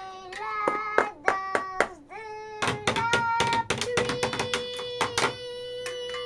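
A child's voice singing wordless notes over quick, sharp hand claps, then holding one long note from about four seconds in.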